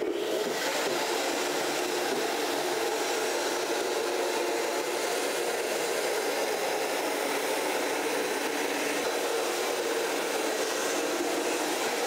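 LECAN R-43M battery-powered wet floor scrubber running steadily: its two water-fed rotating brushes scrub pork grease off a smooth floor while its suction picks up the dirty water behind them.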